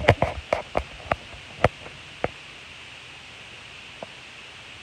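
A quick run of sharp taps or clicks, about eight in the first two seconds or so, then only a steady hiss.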